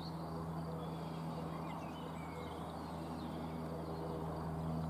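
A steady low hum with faint birds chirping briefly now and then above it.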